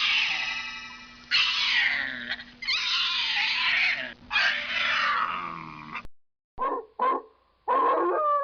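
An animal roar effect: four long, loud calls, each falling in pitch, followed near the end by a few short bursts.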